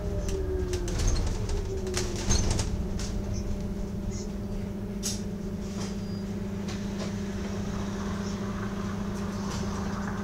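Bus heard from on board: a whine falls in pitch over the first couple of seconds, then the engine runs with a steady drone. Scattered clicks and rattles from the bus interior sound through it.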